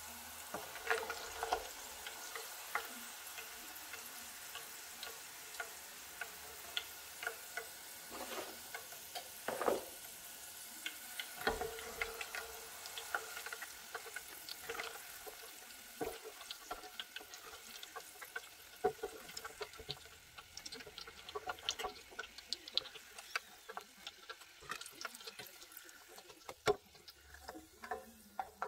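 Potato fries deep-frying in hot oil in a stainless steel pot: a steady sizzle with many scattered crackles and pops. A nylon slotted spoon stirs and scoops the fries out, knocking against the pot now and then.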